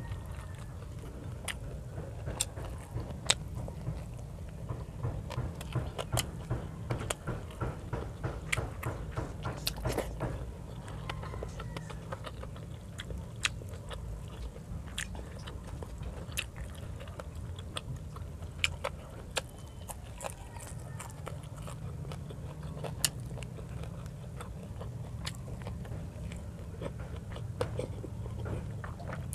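Close-up eating sounds: chewing fried fish and rice eaten by hand, with many small sharp mouth clicks and smacks, over a steady low hum.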